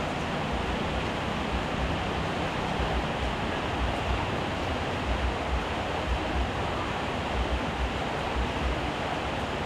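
Heavy rain falling steadily, a dense even hiss with an uneven low rumble underneath.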